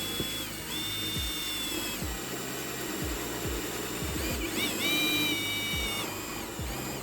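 Electric drill spinning a homemade adjustable hole saw as it cuts a plastic container, the motor whine dropping in pitch three times as the sharpened cutters bite and recovering between. Background music with a steady beat plays underneath.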